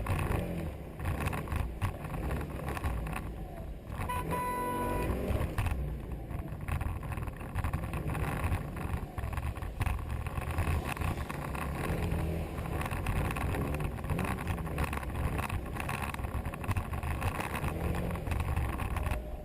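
A car's engine and road noise while driving, a steady low rumble. A short pitched tone, like a horn, sounds about four seconds in.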